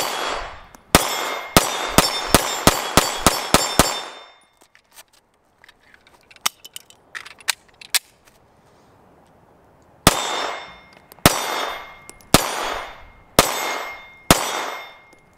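SCCY 9mm compact pistol firing a quick string of about ten shots, the later ones roughly three a second. After a pause with a few faint clicks come five slower, evenly spaced shots about a second apart. Each shot is followed by a trailing echo.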